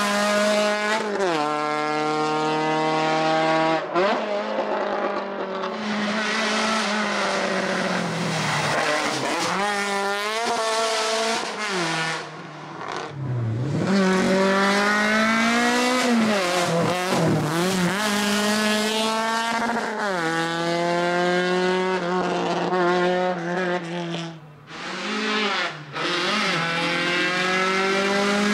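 Race-prepared VW Golf Mk2 engine revving hard up a hill-climb course, its pitch climbing and dropping again at each gear change, heard in several separate passes.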